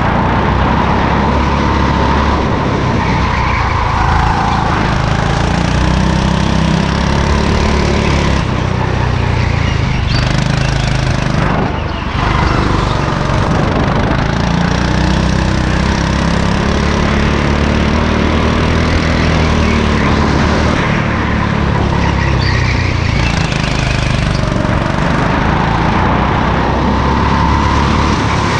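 Go-kart engine running under throttle, heard from the driver's helmet, its pitch rising and falling as the kart speeds up and slows for corners. It dips briefly about twelve seconds in.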